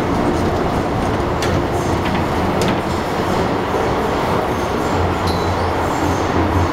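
Steady running noise inside a carriage of an MTR M-Train under way: rumble of wheels on the rails with a low hum, a few faint clicks, and a brief high squeal about five seconds in.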